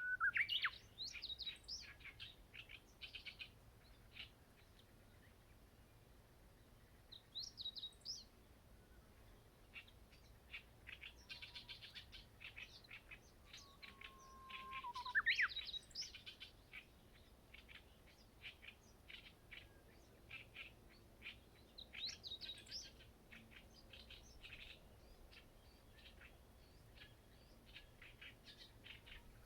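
Songbirds singing: a Japanese bush warbler and blue rock thrushes, with many short chirping phrases throughout. About halfway through comes one long held whistle that ends in a quick rising flourish, the shape of the bush warbler's 'hoo-hokekyo' song.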